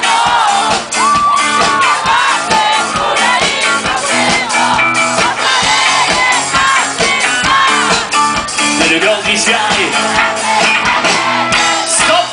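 Live disco polo band playing loud amplified music with a steady drum beat and sung vocals, with voices from the crowd singing and shouting along.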